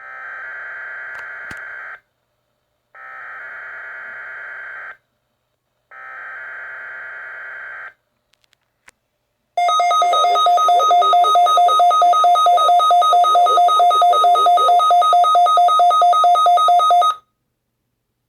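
Weather radio SAME digital header (RWT, required weekly test) played through a Midland WR120EZ weather radio receiver: three screechy data bursts of about two seconds each with short gaps. After a brief pause comes the loud alert tone, two steady pitches pulsing rapidly, lasting about seven seconds before it cuts off.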